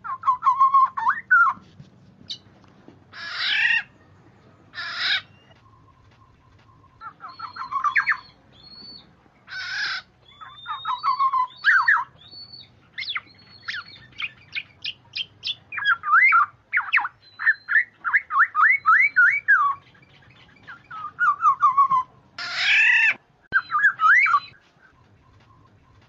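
Black-naped oriole (kepodang) calling in repeated bouts: fluty whistled phrases mixed with several harsh, rasping calls, and a fast run of short chattering notes in the middle.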